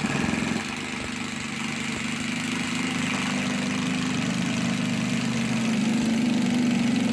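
Power driver running steadily as it drives a screw down through a plywood subfloor into the support beneath, with a fast rattling chatter over a low hum, a little louder toward the end.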